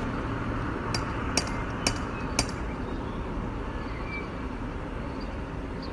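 A cat rattling a metal front-door knocker: four sharp metallic knocks about half a second apart, over steady outdoor street noise.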